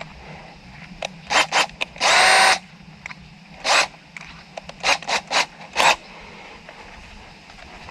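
Power drill boring a tap hole through a saddle into a PVC water pipe, run in about eight short bursts, the longest about half a second just after two seconds in.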